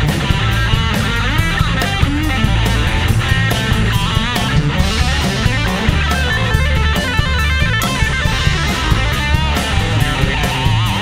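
Live rock band playing: an electric guitar plays lead lines with bent, wavering notes over bass guitar and a drum kit.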